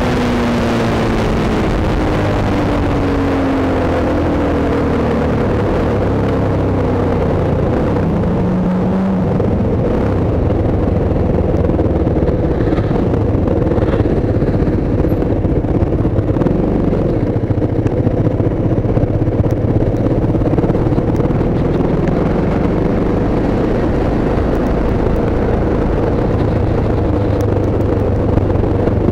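Hyosung GT650 motorcycle's V-twin engine heard while riding. Its pitch falls over the first several seconds as the bike slows, then it runs steadily at a lower pace, under a constant rush of wind and road noise.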